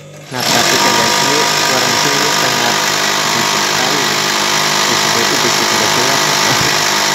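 Old Brother single-needle industrial sewing machine running at speed, loud and steady, starting about a third of a second in. Its bobbin case and presser foot are removed. It runs noisy, which the owner traces to oil not rising because the oil filter is clogged with debris.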